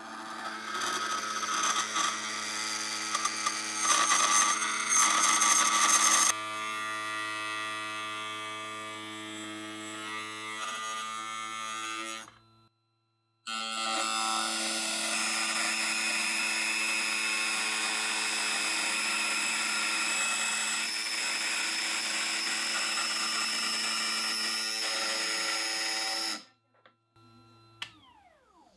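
Makita trim router running in a router table, its bit cutting the edge of a brass piece, a steady whine with grinding noise. It is harshest over the first six seconds, drops out for about a second near the middle, then runs steadily again until it stops a couple of seconds before the end.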